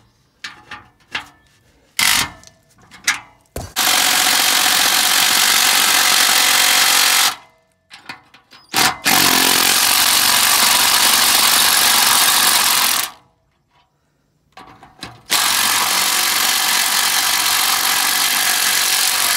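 Cordless Hitachi impact tool hammering on the rusted muffler bracket bolts under the dump truck, in three long runs of several seconds each with short pauses between, working the seized bolts loose so the muffler can come off. A few short clicks and knocks of a hand wrench on the bolts come first.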